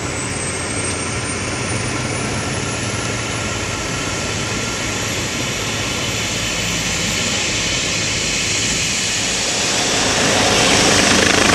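Twin-turbine helicopter, a Eurocopter EC135 medical trauma helicopter, running on the ground with its rotor turning. A high turbine whine rises slowly in pitch, and the rotor noise grows louder about ten seconds in as it powers up for takeoff.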